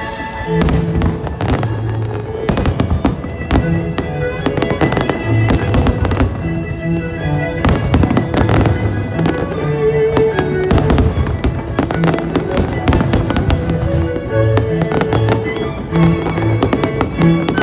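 Fireworks bursting and crackling in rapid clusters of bangs, over music with sustained notes.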